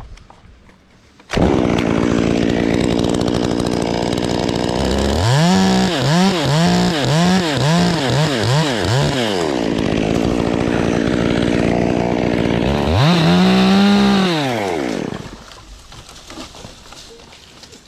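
Two-stroke chainsaw starting abruptly and idling, then revved in about seven quick blips, idling again, and given one longer rev before the engine dies down near the end.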